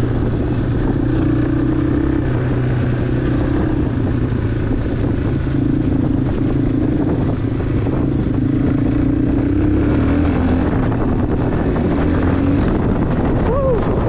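Dirt bike engine running steadily at trail-riding pace, its pitch wavering slightly with the throttle.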